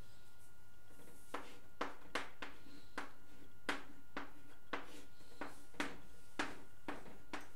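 Chalk writing on a blackboard: about a dozen short, sharp taps at uneven intervals as each letter is struck, starting about a second in.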